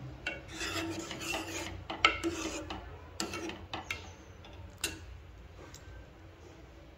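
Metal spoon stirring a stainless-steel pot of payasam, clinking and scraping against the pot's sides and bottom. The clinks are busiest over the first four seconds, with one sharper knock about two seconds in, then trail off.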